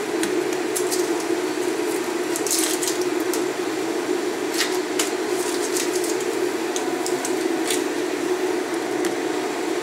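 Handheld vegetable peeler scraping strips off a raw carrot in a series of short, irregular strokes, over a steady hum.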